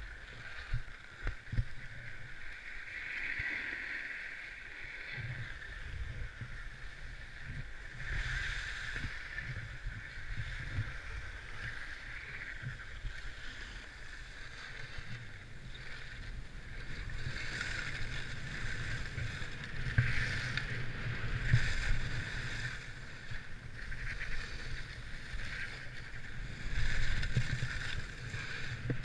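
Skis sliding over snow, their edges scraping and hissing louder and softer through the turns, with low wind rumble on the microphone. A few sharp knocks in the first couple of seconds.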